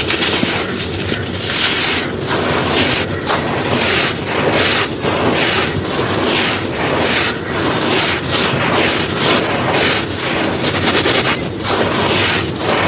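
Dry moulded black sand shapes being crushed and crumbled, a dense, continuous, crispy crunching with grains trickling and scraping between the breaks.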